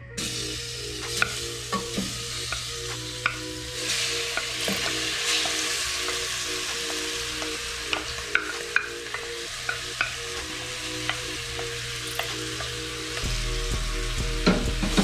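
Curry-marinated jack crevalle chunks sizzling as they go into a hot pot of oil and spices, the sizzle growing louder about four seconds in. A wooden spoon clacks and scrapes against the bowl and pot as the fish is stirred.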